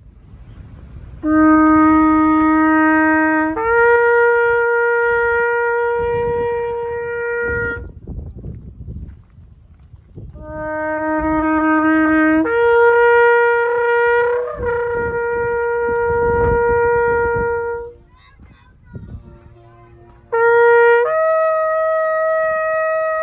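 Shofar (ram's horn) blown in three long blasts. Each starts on a short lower note and breaks up to a higher note held for several seconds. The last blast is shorter and pitched higher.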